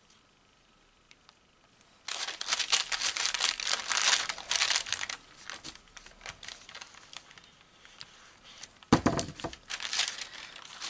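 Sheet of greaseproof paper crinkling and rustling as it is handled and ironed over, loudest from about two seconds in, with a dull thump about nine seconds in.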